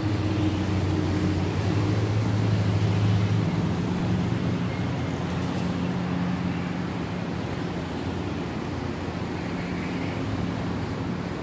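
Steady low hum of a motor vehicle engine running, over an outdoor haze of background noise. The hum is strongest for the first three or four seconds, then eases.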